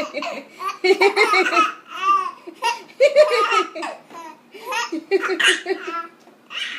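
A 10-month-old baby laughing in repeated high-pitched bouts of giggles and belly laughs, amused by his own hiccups.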